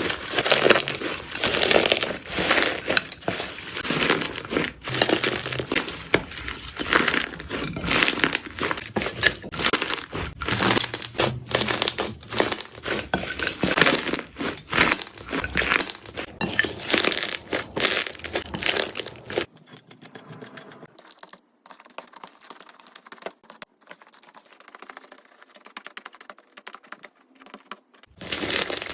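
Jelly slime being squeezed and pressed by hand, with dense sticky crackling and popping. About two-thirds of the way through it drops to a few faint clicks for several seconds, then the loud crackling starts again near the end.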